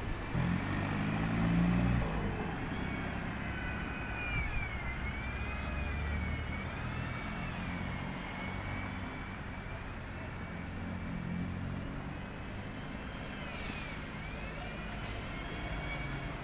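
A bus pulling away from a stop: the engine runs with a low rumble, loudest at first. A whine wavers up and down in pitch through most of it.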